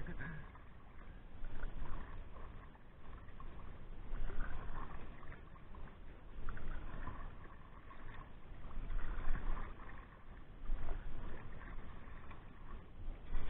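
Paddle strokes from an open canoe moving through calm water, a swell of splashing and swishing about every two seconds.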